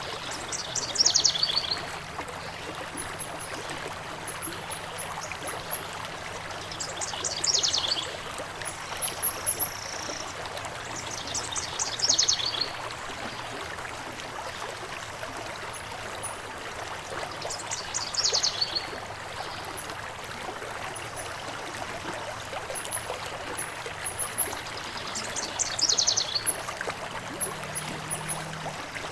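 Steady flowing stream with a songbird singing a short, falling trill five times, about every five to six seconds, and faint high chirps in between.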